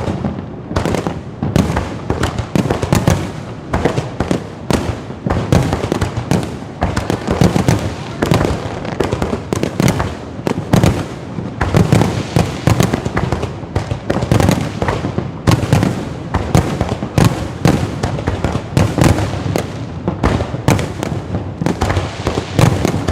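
Low-altitude fireworks going off in a dense, unbroken barrage of bangs and crackles, several each second.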